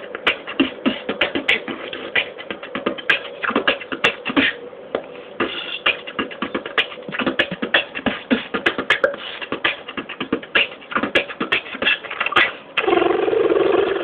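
Beatboxing: a fast, dense stream of sharp percussive mouth sounds, several a second, then near the end a loud held sustained sound.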